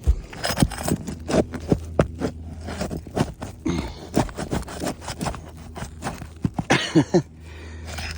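Aged asphalt roof shingles cracking, scraping and tearing as one is worked loose and pried up, in a rapid run of sharp cracks and crunches, with a few short falling squeaks about seven seconds in. The shingles rip instead of lifting cleanly, a sign that the roof is too old and brittle to repair.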